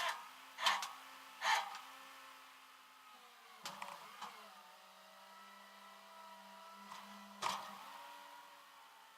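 A steady machine hum that drops a little in pitch about three and a half seconds in, with several sharp clanks, three of them close together near the start.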